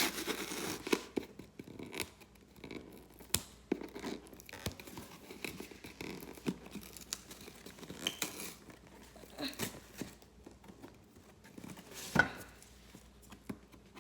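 Scissors snipping and scraping at a package, with irregular tearing, scratching and crinkling of the wrapping as it is worked open; a sharp click about twelve seconds in is the loudest moment.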